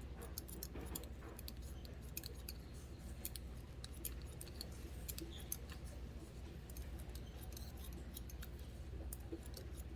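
Barber's scissors snipping hair in quick, irregular crisp snips, a few a second.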